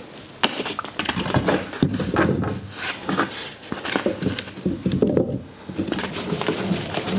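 Glued hardwood lamination strips being set and shifted into a row of parallel-jaw clamps during a glue-up: irregular knocks, taps and scrapes of wood against wood and against the clamp jaws.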